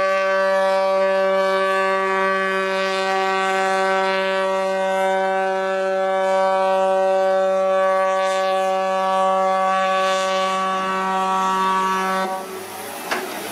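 A large cargo ship's horn sounds one long, steady blast, then cuts off about twelve seconds in.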